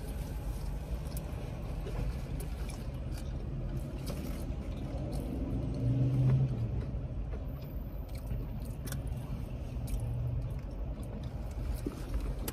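Close-up chewing and crunching on a fried chicken sandwich, with scattered small crunches and mouth clicks, over the steady low rumble of a car's idling engine.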